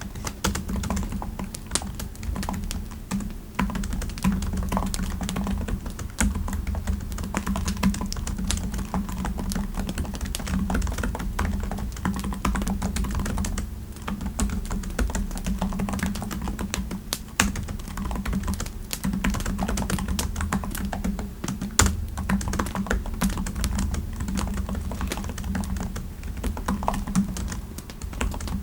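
Continuous typing on a computer keyboard: rapid, irregular keystrokes with a brief pause about halfway through.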